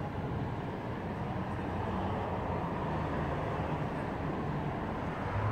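Steady low background rumble with a faint hum, without breaks or sudden sounds.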